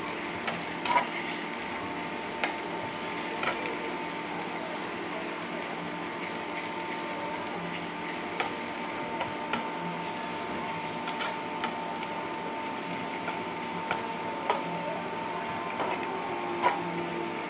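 Sliced onions frying in ghee in a steel pan, stirred with a spoon that clicks and scrapes against the pan at irregular moments, the sharpest click about a second in, over a steady hum.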